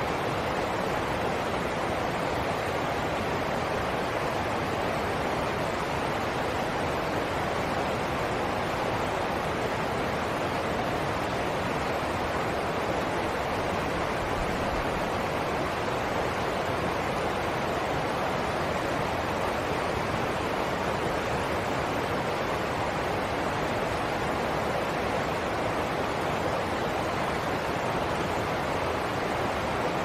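Shallow stream rushing over rocks and a small cascade: a steady, even rush of water with no change.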